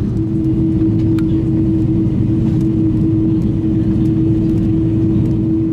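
Airbus A330-200 cabin noise while taxiing after landing: a steady low rumble of the idling engines and airflow, with a constant hum over it.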